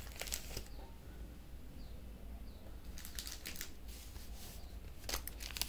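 Faint clicks and rustling from jewellery pendants being handled, in three short clusters: just after the start, about three seconds in, and near the end.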